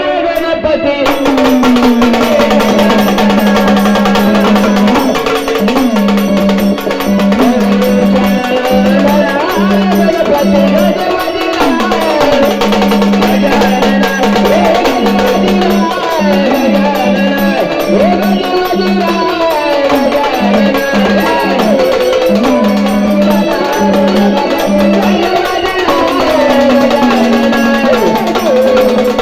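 Gondhal devotional song: a male voice singing a wavering melody over a held low drone note, with hand drums and other percussion keeping a dense, steady beat.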